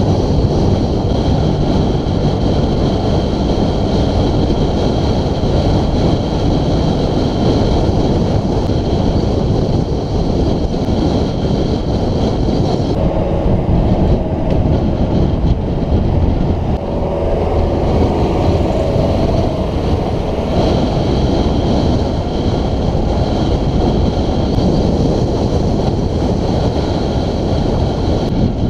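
Wind buffeting a bicycle-mounted camera's microphone on a fast descent: a loud, steady rumble.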